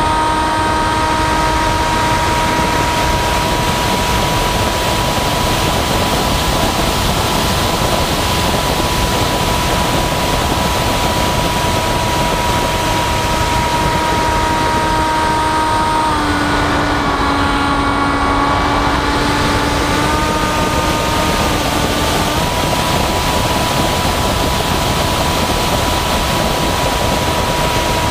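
Model flying wing's motor and propeller in flight, a steady whining drone over heavy wind rush on the microphone. Past the middle the note wavers and drops for several seconds, then settles back to its steady pitch.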